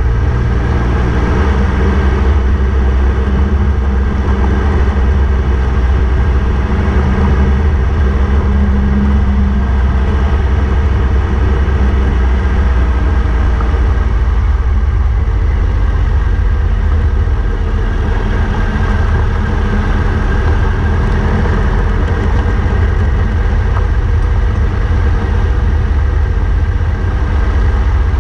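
Motorcycle engine running steadily while riding down a gravel road, with road and wind noise, heard from the rider's own bike.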